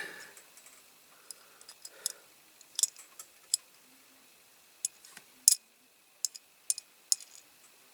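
Irregular light clicks and taps of a small die-cast metal model car being handled, its wheels and axles checked; the sharpest tap comes about five and a half seconds in.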